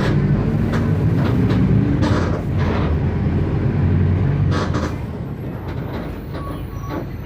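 Mercedes-Benz OF 1519 bus's four-cylinder diesel engine running while the bus is under way, with the body rattling now and then; the engine eases off and gets quieter about two-thirds of the way through.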